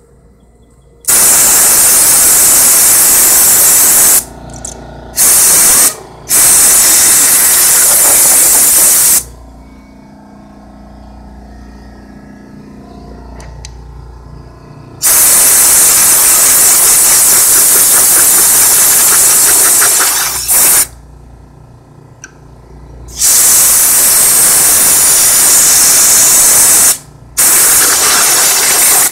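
Compressed air from an air compressor blow gun blasting dust out of an open desktop computer case. It comes as a run of long, loud hissing blasts of several seconds each, broken by short pauses and one quieter gap of about six seconds in the middle.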